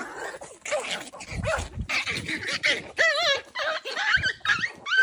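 Young puppies whining and yipping, a string of short high-pitched cries, some with a wavering pitch about three seconds in.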